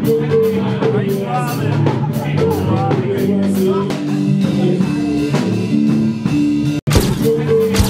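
Music: a song with drum kit, cymbals and a singing voice. It cuts out abruptly for an instant near the end, then starts again.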